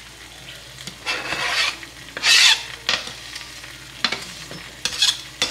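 Chopped scotch bonnet scraped off a plastic chopping board with a knife into a pan of frying tomato purée, which sizzles. Several hissy bursts, the loudest about two seconds in, then a few sharp clicks.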